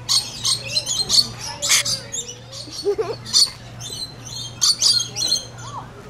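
Rainbow lorikeet chattering and screeching in short, irregular bursts of high-pitched calls.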